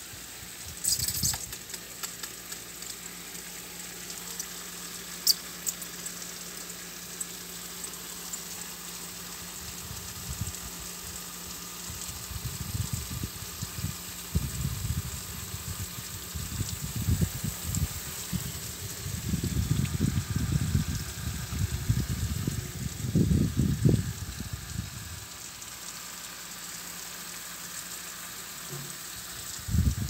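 Steady outdoor hiss with a thin high drone, and a few sharp clicks about one and five seconds in. From about twelve seconds in, irregular low rumbling on the microphone comes and goes for over ten seconds.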